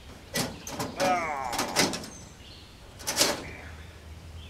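Metal tools and sheet metal being handled: a few sharp clanks and knocks, with a short creaking squeal about a second in.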